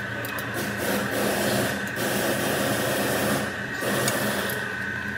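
A steady workshop hum with a high whine, over which come three or four short bursts of rasping and a few sharp metallic clicks as the car's front suspension is worked on by hand.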